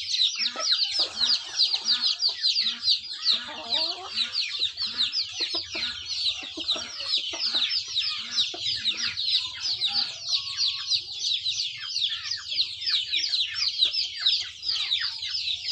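Chickens: many birds peeping in dense, rapid, high-pitched chirps without a break, with lower clucks mixed in.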